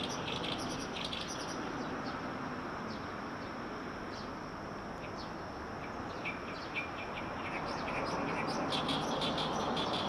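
Small songbirds chirping and twittering in quick, high, short notes over a steady background rush; the chirping is busiest at the start and again near the end.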